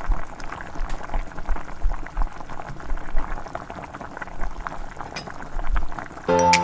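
Maggi noodles boiling in water in a steel saucepan: steady bubbling with many small pops. Music comes in just at the end.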